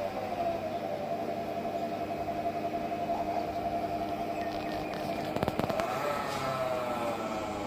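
Samsung front-load washing machine running with a whining tone that drifts slowly up and down in pitch, and a short burst of rattling clicks about five and a half seconds in. The grating, metal-rubbing noise from the drum is typical of worn drum bearings, an unbalanced drum or weak suspension shocks.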